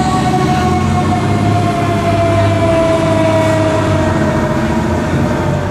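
Fire engine siren sounding one long tone that slowly falls in pitch, over the low rumble of the truck's engine as it pulls away.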